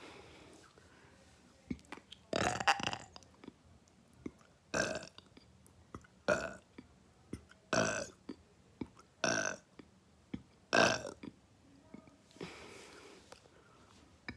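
A person burping repeatedly: about six short, loud burps roughly a second and a half apart, then a fainter, longer one near the end.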